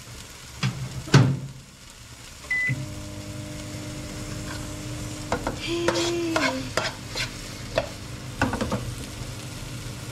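A microwave oven's door knocks shut, its keypad beeps once, and about two and a half seconds in the oven starts running with a steady hum. Over the hum, a metal ladle scrapes and stirs food sizzling in a frying pan.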